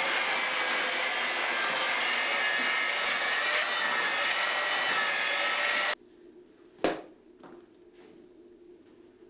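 A motor-driven machine runs steadily with a whine, then cuts off suddenly about six seconds in. A couple of sharp knocks follow.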